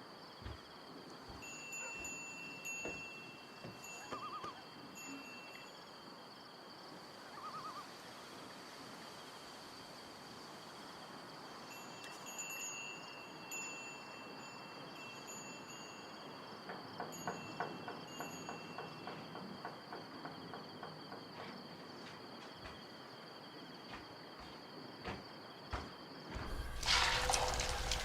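Rural ambience: a steady chirring of insects with intermittent short bird-like chirps. Near the end, the loud sizzle of food frying in a pan starts.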